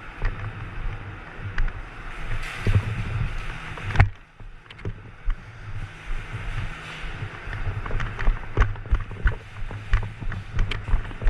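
Continuous rustling and handling noise with wind on the microphone, scattered with short clicks and knocks, and one sharp knock about four seconds in.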